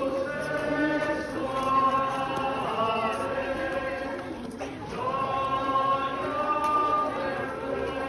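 A group of people singing a hymn together in long held notes, with a short pause between phrases about four and a half seconds in.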